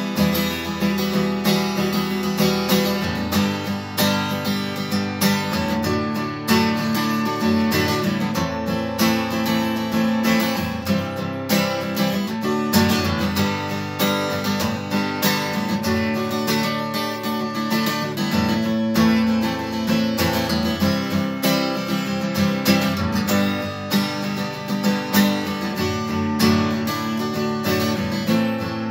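Acoustic guitar played continuously, a run of chords with many quick strokes across the strings, the chords changing every second or two.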